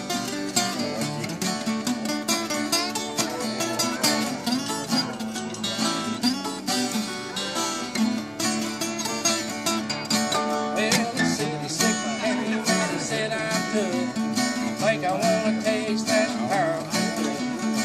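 Two acoustic guitars playing an up-tempo country instrumental break between verses: fast strummed and picked chords with a moving picked melody line over them.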